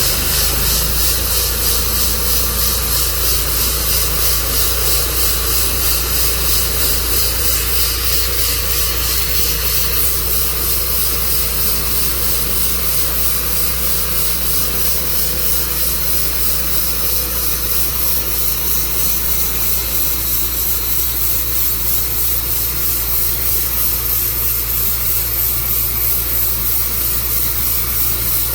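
An engine running steadily with a loud hiss over it, its low hum settling in just after the start.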